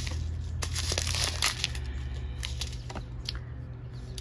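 Small clear plastic bags of diamond-painting resin drills crinkling as they are handled, with scattered sharp clicks and crackles.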